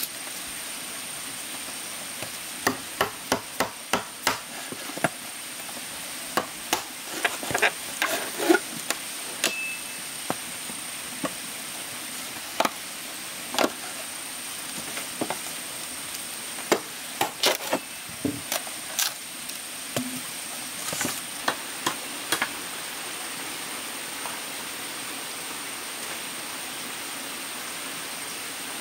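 Irregular sharp knocks and clicks, a few with a brief ring, over a steady hiss and a thin, steady high-pitched whine; the knocking stops about two-thirds of the way in.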